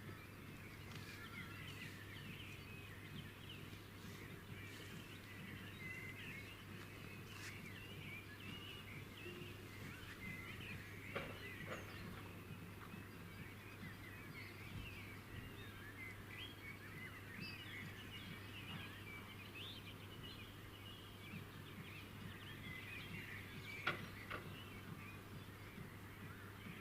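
Many small birds chirping and twittering at once in a faint, dense chorus over a steady low hum, with two short clicks, about eleven seconds in and near the end.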